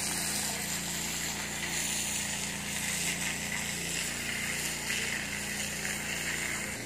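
A small engine running steadily with a low hum, under a steady hiss; the hum changes pitch near the end.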